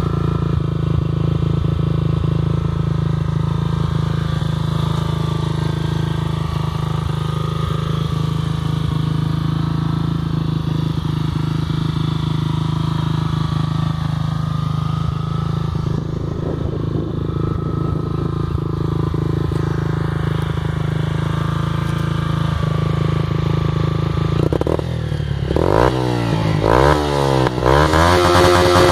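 Honda CG 125 single-cylinder four-stroke motorcycle engine idling steadily through a Coyote RS1 aftermarket exhaust. Near the end it is revved several times, the pitch rising and falling with each blip.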